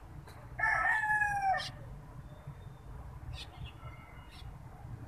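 A rooster crowing once, a call of about a second, followed by a few faint ticks and chirps.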